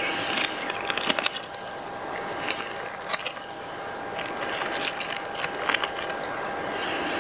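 Thin plastic wrapping crinkling as it is peeled off a roll of food by hand, in three short bursts of crackles, over a steady background hiss.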